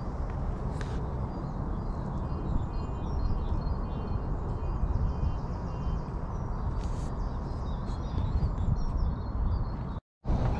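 Wind buffeting the microphone, an uneven low rumble, with a bird singing a run of short high notes from about two to six and a half seconds in. The sound drops out completely for a moment near the end.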